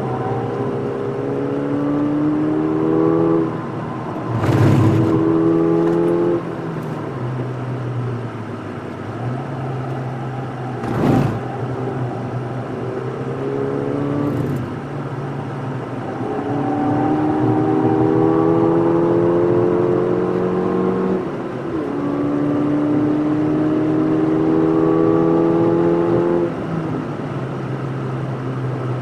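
Ford Fiesta ST Mk7 (tuned to 221 PS) turbocharged 1.6-litre four-cylinder heard from inside the cabin, accelerating hard in the gears: the engine note climbs, drops at each upshift and climbs again, with a steadier stretch in the middle. Two sharp knocks cut through, one about five seconds in and a louder one near the middle.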